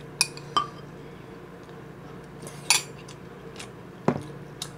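Metal spoon clinking and scraping against ceramic bowls while eating: a handful of short, sharp clinks and knocks, the loudest about halfway through and another just after four seconds. A steady low hum sits underneath.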